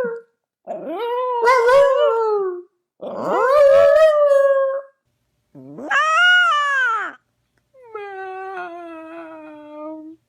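A dog howling in four drawn-out calls with short pauses between them. The last call is lower and quieter, sliding slowly down in pitch.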